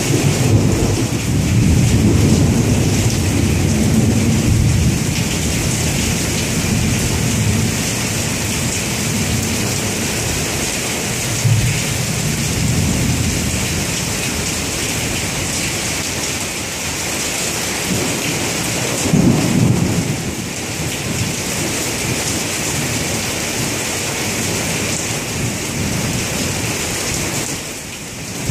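Heavy thunderstorm rain pouring steadily and splashing on wet pavement, with rolling thunder rumbling through the first few seconds, again about twelve seconds in, and briefly about nineteen seconds in.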